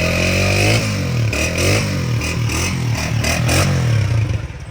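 2025-model Honda motorcycle engine being revved several times, its pitch rising and falling, then dropping back to a pulsing idle near the end.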